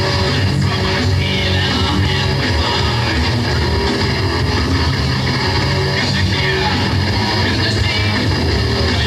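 A rock band playing live, electric guitars and drums at a loud, steady level throughout.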